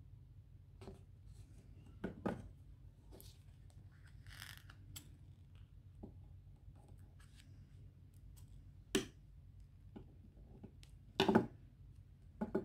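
Planner stickers being peeled from their sheet and pressed onto paper pages: soft paper rustles and a few sharp clicks, the loudest a double click about eleven seconds in.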